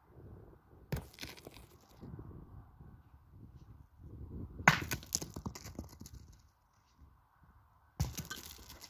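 Pétanque shooting practice: steel boules landing with three sharp clacks, about a second in, near five seconds (the loudest) and at eight seconds, each followed by the boules skidding and rolling on the ground.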